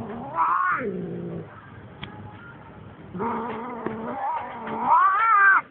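Cat yowling: a short falling call, then a longer drawn-out call that rises and swells to its loudest near the end.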